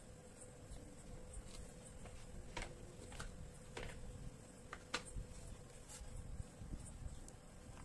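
A few faint, short clicks and taps of dry clay and chalk pieces being handled and touched together, over a low, steady hum.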